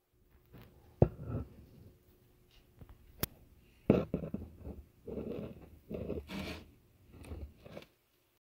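A hand handling a small popsicle-stick wood wall model on a tabletop: a few sharp knocks and clicks, then stretches of rubbing and scraping as the model is moved. The sound cuts off near the end.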